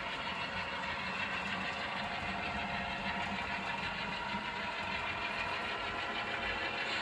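Model trains running on a layout: a steady mechanical running noise from the locomotive motors and the wheels on the track.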